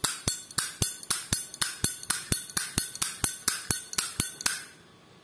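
Brass Zippo lighter's hinged lid being flicked open and snapped shut over and over: a rapid, even series of sharp metallic clicks, about four a second, that stops shortly before the end.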